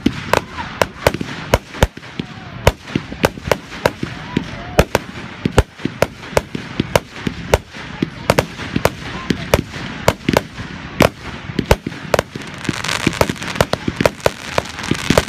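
Fireworks display: aerial shells bursting in a rapid, uneven series of sharp bangs, several a second. A crackling hiss builds up under the bangs near the end.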